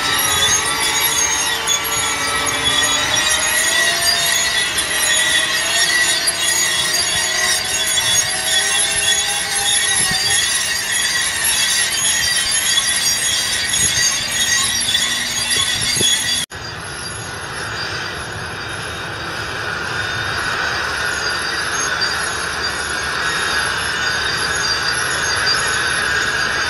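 2019 Case IH Magnum 380 RowTrac tractor's 8.7-litre six-cylinder diesel running under way with a Kuhn Aurock pneumatic seed drill, with several high whining tones over it and wavering squeals in the first half. An abrupt cut about sixteen seconds in, after which a steadier whine remains.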